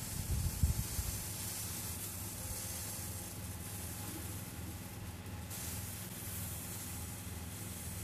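Steady hiss over a low rumble, with a brief low bump about half a second in. No chirping or calls from the nestlings.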